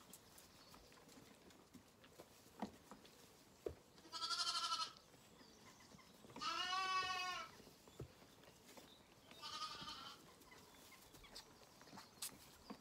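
Zwartbles lambs bleating three times, each call about a second long, with a few faint knocks between the calls.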